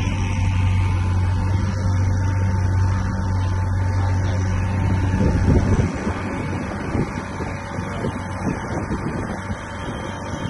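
Tour boat's engine running with a steady low hum, which drops away about six seconds in, leaving an uneven rumbling.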